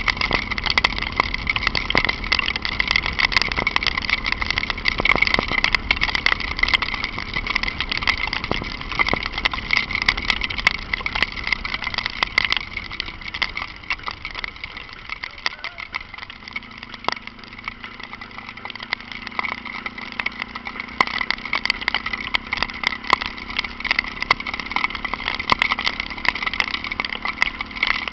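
Ford Falcon out in the rain: engine and wet-road noise with many sharp ticks throughout, typical of raindrops striking the car. About halfway the low rumble drops away and a steady engine hum carries on, as when slowing toward idle.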